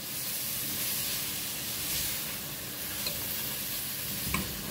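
Shredded chicken and capsicum sizzling in a steel pot as it is stirred with a wooden spatula, with a brief knock near the end.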